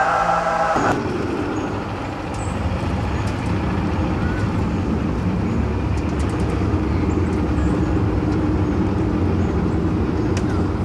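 Steady low mechanical rumble with a held hum, like an engine running; a short pitched sound cuts off within the first second.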